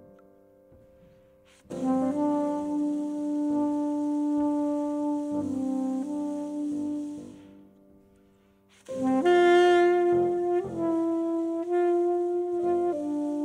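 Soprano saxophone playing two slow phrases of long held notes, the first starting about two seconds in and the second about nine seconds in, with a grand piano underneath.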